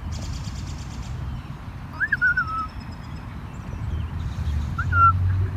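A bird giving short whistled calls that rise and fall in pitch, once about two seconds in and again near the end, over a steady low rumble.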